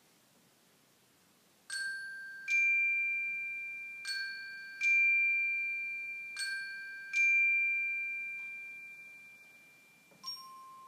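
Glockenspiel (orchestra bells) playing a repeated two-note figure, a lower note then a higher one, three times over, each note struck and left ringing as it fades. A new note is struck near the end.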